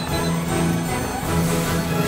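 Background music with steady held notes over a low bass line.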